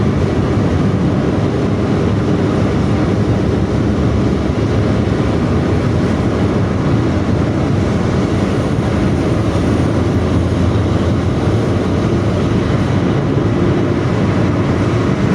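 Intercity bus with a growling 'ngorok' exhaust running at speed: a loud, steady engine and exhaust drone mixed with road noise.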